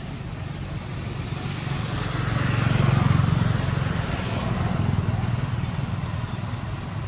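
A motor vehicle's engine running steadily, growing louder to a peak about three seconds in and then fading, as it passes by.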